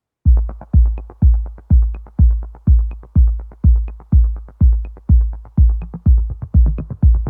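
Electronic dance music: a heavy kick drum on every beat, about two a second, with light hi-hat ticks between the kicks.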